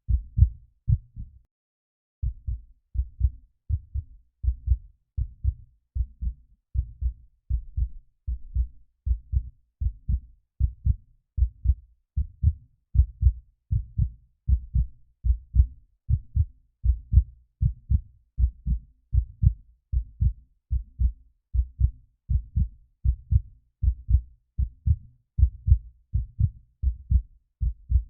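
Heartbeat sound effect: low, dull thumps repeating in a steady rhythm, with a short break about a second and a half in.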